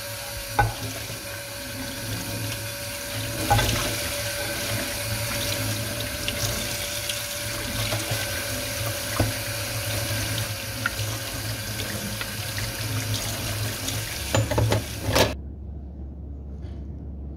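Water running steadily from a tap into a sink, with a few light knocks, turned off abruptly about fifteen seconds in.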